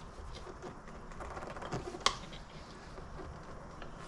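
Tyre bead being worked off a mobility scooter wheel rim with tyre irons and by hand: light scraping and small clicks, with one sharp click about two seconds in.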